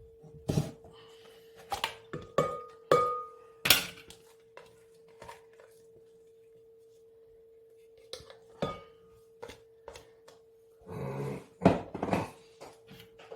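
Utensils, a grater and a bowl knocking and clinking together in irregular taps as grated onion, garlic and ginger are scraped into a microwavable bowl, a few clinks ringing briefly. A steady faint hum runs underneath.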